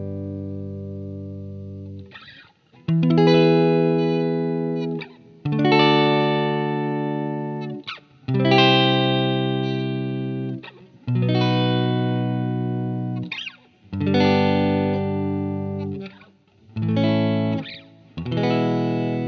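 Background music: electric guitar with effects playing held chords, a new chord struck every two to three seconds and left to ring and fade.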